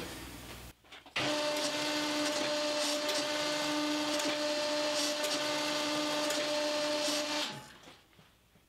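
Homemade hydraulic forging press running: its electric motor and hydraulic pump hum at a steady pitch while the ram is worked. The hum starts suddenly about a second in and fades out near the end.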